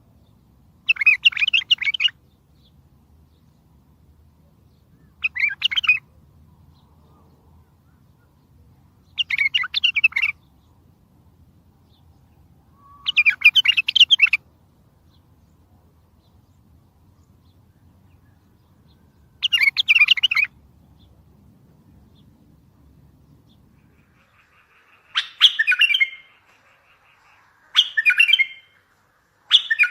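Bulbul singing: five loud, warbling song phrases of about a second each, a few seconds apart, then near the end quicker, shorter phrases in close succession.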